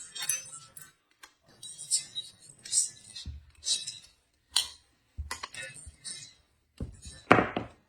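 Light metal clinks and clicks of a hex wrench and the chainsaw attachment's metal parts being handled, in short separate knocks with a louder one near the end.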